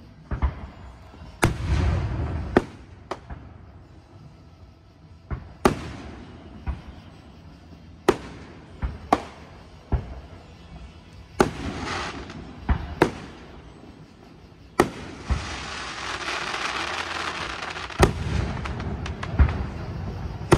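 Aerial fireworks shells bursting: about fifteen sharp bangs at uneven intervals, some followed by a short rumble. A hissing wash runs for a few seconds in the second half.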